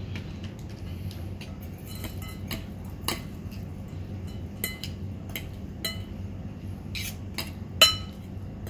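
Metal fork and spoon clinking and scraping against a ceramic bowl while instant noodles are tossed and mixed. The clinks come irregularly, and the loudest is near the end.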